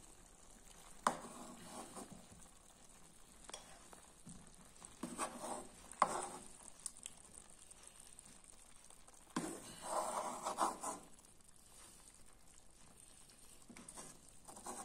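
A metal spoon stirring and scooping through stewed vegetables in a frying pan, with scrapes and light clinks against the pan in short, scattered bursts.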